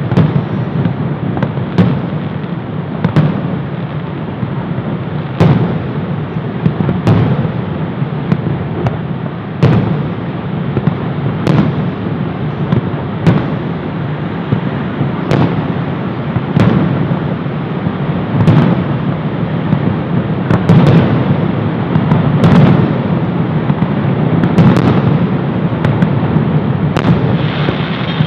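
Fireworks display: aerial shells bursting in a steady series of loud bangs, about one every one to two seconds, over a continuous rumble of crackle and echo.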